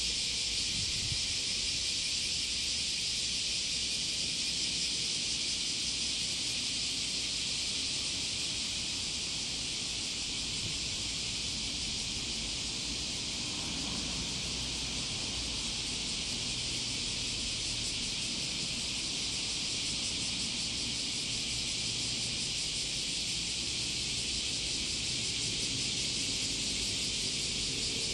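A steady, unbroken high-pitched insect chorus, with a faint low rumble beneath it.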